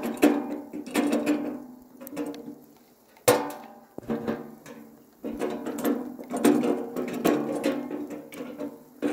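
Sheet-metal camping stove being shaken and banged about, clanging and rattling with a ringing metallic tone, as loose ash and hardened creosote are knocked out of it; one sharp loud clang comes about a third of the way in.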